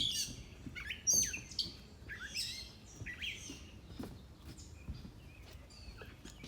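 Songbirds chirping: a quick run of short, sharp chirps in the first few seconds, thinning out to fewer, fainter calls later.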